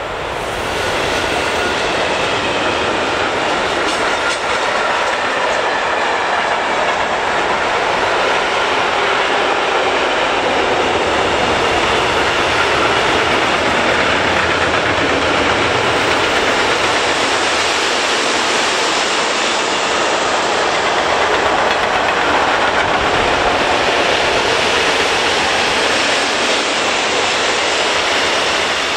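Freight train passing close by: an electric locomotive followed by a long string of goods wagons, their wheels running steadily on the rails with a rhythmic clatter. The noise swells about a second in, holds steady as the wagons roll past, and eases off near the end.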